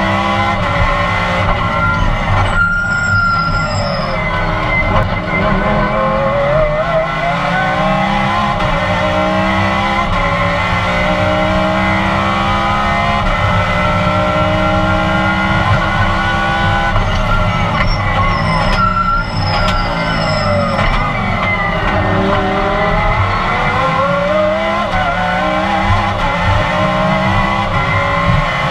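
Lamborghini race car's V10 engine heard from inside the cockpit, its pitch climbing through the gears and dropping on downshifts, lap-style. Twice, about three seconds in and again around nineteen seconds, the engine falls away under braking with a brief high squeal.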